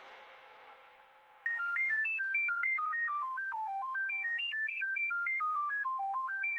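A loud hit's echoing tail fades out, then about a second and a half in a simple electronic melody of single pure beeps starts, quick notes stepping up and down in pitch like a phone ringtone.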